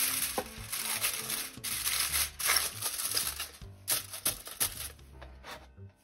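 Aluminium foil crinkling and crumpling as hands squeeze and press it into a bowl shape, dying down about five seconds in. Soft background music underneath.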